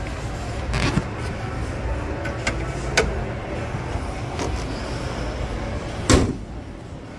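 Honda Brio bonnet being shut: a few light clicks and knocks as it is handled, then one heavy thump as it is pressed down and latches about six seconds in.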